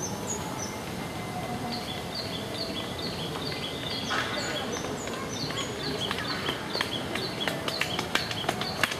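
A run of short, high chirps repeating about twice a second over a steady background hiss. From about seven seconds in, sharp clicks join and come more often.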